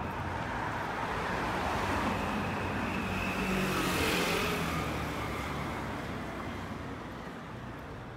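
Street traffic with a motor vehicle passing close by: its noise swells to a peak about four seconds in and then fades away.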